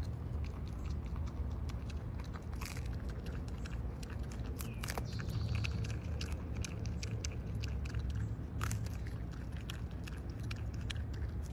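Groundhog biting kernels off an ear of corn: a close, continuous run of crunchy bites and chewing clicks.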